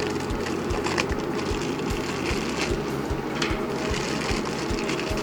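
Background music with a steady, even beat of about three low thumps a second.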